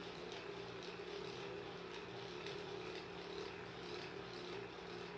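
Electric handheld massager running steadily, its motor giving an even low hum as it works over the buttock muscles.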